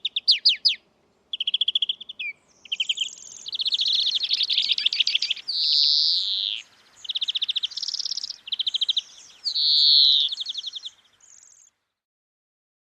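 European greenfinch singing: a long run of varied trills of rapidly repeated notes, broken by a couple of longer slurred notes, then stopping.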